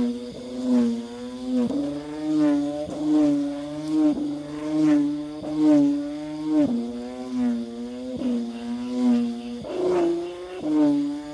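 Khmer kite hummer (ek), a bamboo bow strung with a palm-leaf strip, whirled through the air and droning. Its buzzing hum swells and wavers in pitch a little more than once a second with each swing, as the freshly trimmed palm-leaf string is tested.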